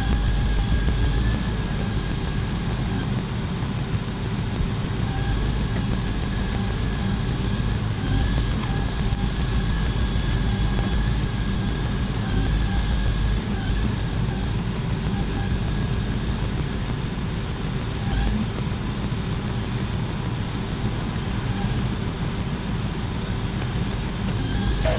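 Heavy vehicle engine running steadily, with a thin high whine held over the low rumble.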